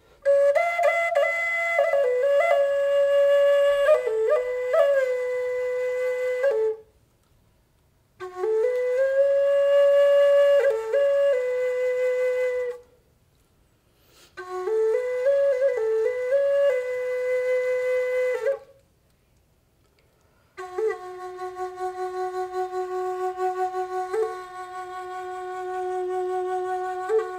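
Long end-blown bamboo flute played solo, with a breathy tone. It plays three short phrases of slow notes that slide between pitches, with a short silence for breath after each. About twenty seconds in it settles into a long held lower note that wavers in loudness.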